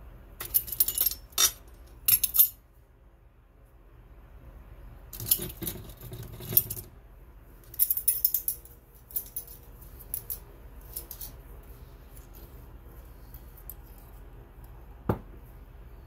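Metal and glass clinks and scrapes from a spoon and paint-making tools and containers being handled on a hard work surface. They come in several short clusters, with one sharp click near the end.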